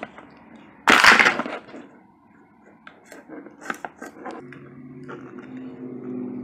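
Crinkling and tearing of a plastic toy wrapper, one loud rip about a second in, then small clicks and rustles of plastic being handled.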